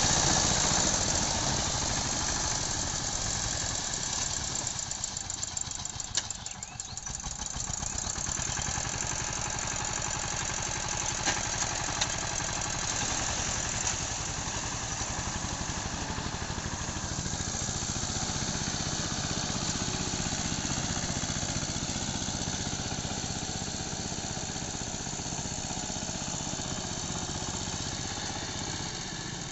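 Single-cylinder 12 hp Changchai diesel engine of a Dongfeng walk-behind power tiller chugging steadily while its rotary blades churn through flooded paddy mud. It is loudest at first, with a short dip about six seconds in, and grows fainter as the tiller moves away across the field.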